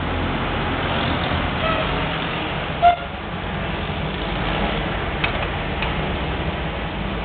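Steady low background noise, with a short tooting tone about three seconds in and a couple of faint clicks later.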